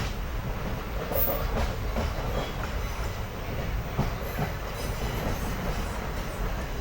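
Passenger express train running at speed, heard from on board: a steady rumble of wheels on the rails with clacks and knocks over rail joints. The sound cuts off suddenly at the end.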